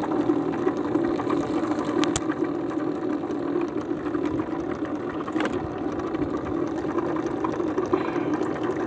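Water sloshing and bubbling in a wooden boat's flooded hold as a freshly caught fish thrashes in it, with a few sharp splashes, over a steady machine hum.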